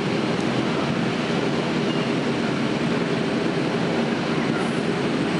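A grid of racing superbikes with their engines running at idle, merging into one steady engine din.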